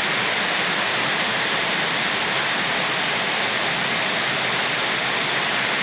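Steady storm rain pouring down, an even hiss with no breaks.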